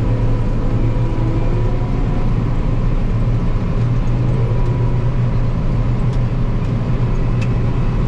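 John Deere 9560 STS combine running steadily while harvesting, heard from inside the cab: a loud even drone of engine and threshing machinery with a low hum and a thin steady whine above it.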